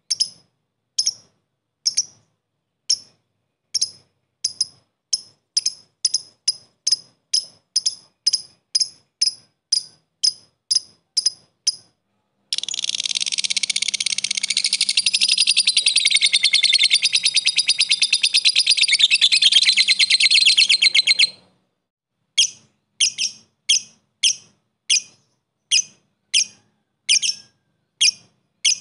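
Masked lovebird (blue mutation) giving sharp, clipped single chirps (the 'ngetik'). They start about one a second and quicken to two or three a second. About halfway in it breaks into a long, rapid chattering trill (the 'ngekek') lasting about nine seconds, then goes back to spaced chirps.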